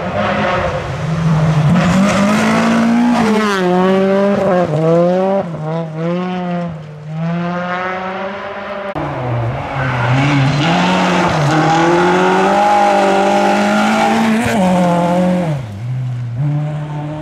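Rally cars driving flat out on a gravel stage, their engines revving hard with repeated climbs in pitch broken by quick gear changes. The sound eases off around seven seconds in, then a second car comes through at full revs, and the engine note drops sharply near the end as it lifts off.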